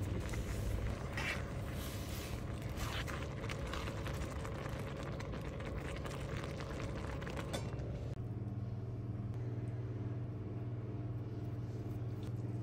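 A steady low hum, with a wooden spoon stirring and scraping through creamed spinach in a pan during the first part. The hum changes about two-thirds of the way through.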